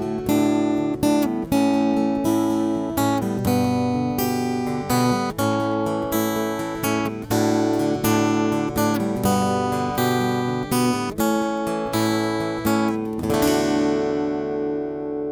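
Acoustic guitar music, strummed in a steady rhythm of about two strokes a second, ending on a chord that rings out and fades near the end.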